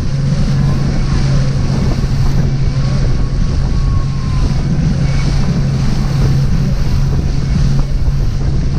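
Motorboat engine running steadily under way, a constant low hum, with wind buffeting the microphone and the rush of choppy water.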